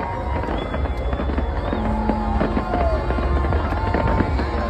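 Aerial fireworks display: rapid crackling and popping over repeated low booms, with whistle-like tones sliding down in pitch.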